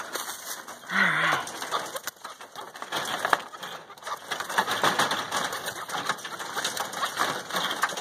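Small game birds, chukar partridges among them, moving about in a wire-mesh pen. About a second in there is a short call with falling pitch, followed by a steady patter of quick clicks and scratches.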